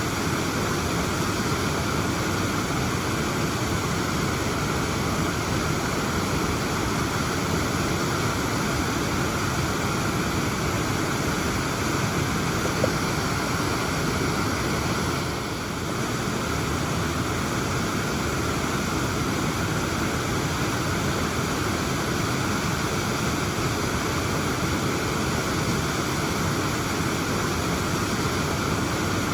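A waterfall rushing steadily, a constant full roar of falling water, with a brief slight dip in level about halfway through.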